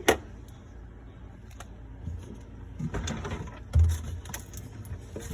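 Clicks and knocks of a refrigerator glass shelf and its frame being pushed and handled, with a dull thump near four seconds in, and a pet bird calling.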